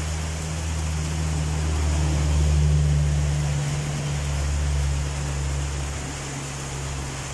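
Heavy storm rain and wind making a dense, steady hiss, with a steady low hum underneath; it swells briefly a couple of seconds in.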